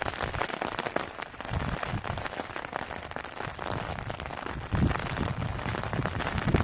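Rain falling steadily, heard as a dense stream of fine drop ticks. A low rumble, like wind on the microphone, builds up from about two-thirds of the way through.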